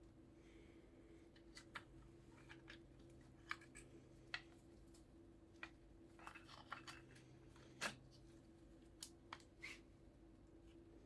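Near silence with a faint steady hum, broken by a dozen or so brief, faint clicks and light taps at irregular intervals, a quick cluster of them around the middle.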